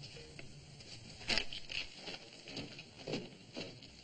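Irregular footsteps: a string of sharp taps a fraction of a second apart, starting about a second in, as someone walks quickly.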